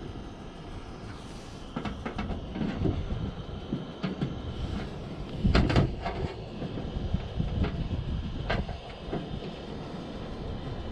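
Steady rushing of a gas-heated soldering iron's burner, with irregular light clicks and scrapes of the hot iron and tin solder rod on zinc sheet as a vertical gutter seam is soldered. A denser cluster of knocks comes about halfway through.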